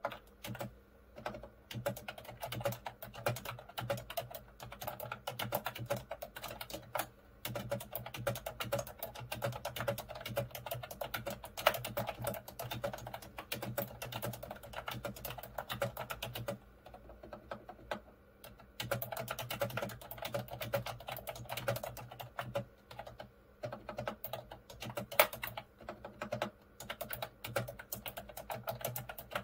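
Continuous fast typing on a Mofii Sweet wireless keyboard with round typewriter-style keycaps: a rapid stream of key clicks that breaks off for a second or two a little past halfway, then carries on.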